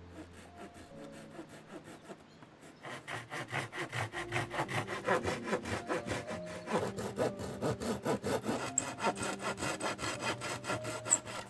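Narrow-bladed hand saw cutting a wooden board in quick, even back-and-forth strokes, faint at first and louder from about three seconds in.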